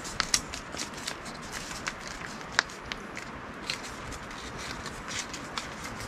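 Scattered small clicks and light crackling, with a few sharper taps, from cooking utensils and food packaging being handled over a steady low hiss.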